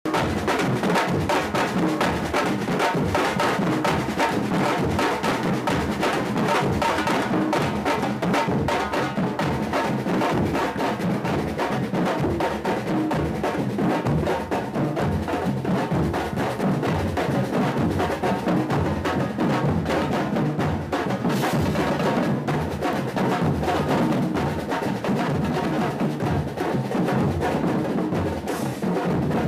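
Percussion group drumming a steady, driving rhythm, with deep bass drums under quicker, sharper strikes.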